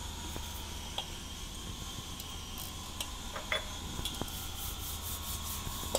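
Auger powder filling machine running: a steady electric motor hum with a high whine, and a few light clicks.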